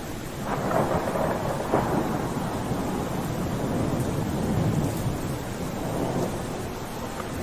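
Steady rain with a roll of thunder that swells in about half a second in and rumbles on for several seconds before easing off near the end.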